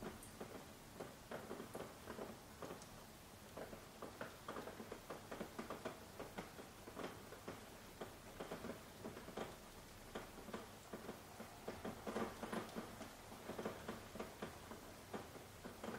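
Light rain, fairly faint: many small drops tapping irregularly on window glass, a little busier in the second half.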